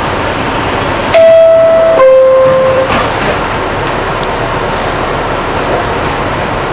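R68 subway car's door-closing chime: two held tones, the second lower, about a second in, warning that the doors are about to shut. The doors then slide closed over the steady hum of the car.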